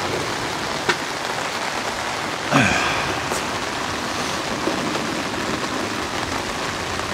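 Steady rain falling on a pop-up canopy overhead. About two and a half seconds in comes a brief sound that slides down in pitch.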